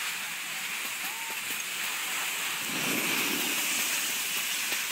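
Steady hiss of outdoor snow-slope noise, with a louder, lower rush of a snowboard sliding over packed snow close by, about three seconds in.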